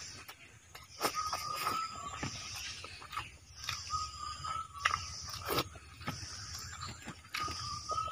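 Close-up eating sounds of a man eating curry and rice by hand: wet mouth smacks, chewing and sticky finger clicks. A short high-pitched sound recurs three times in the background.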